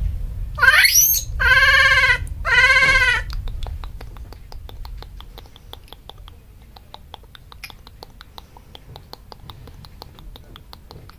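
Baby vervet monkey screaming: a quick rising squeal, then two loud, drawn-out cries in the first three seconds. After that comes a long run of faint, quick clicks, several a second.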